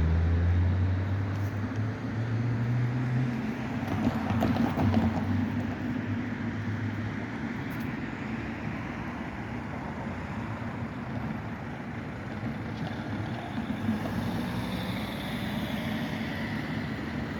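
Tram and road-vehicle noise: a low motor hum fades out over the first few seconds, a brief rattling clatter comes about four seconds in, then steady traffic noise.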